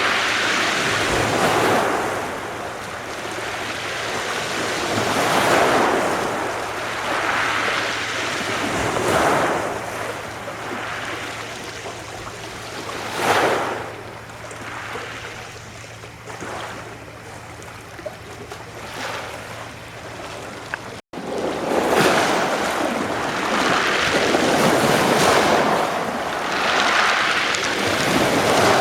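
Adriatic Sea waves washing onto the shore, each swell rising and falling away every couple of seconds. It goes quieter in the middle, then a brief break in the sound about two-thirds through, after which the waves come louder.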